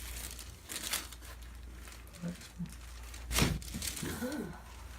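Rustling and movement on a chiropractic treatment table, with two short sharp noises, the louder one about three and a half seconds in, and a brief low murmured voice near the end.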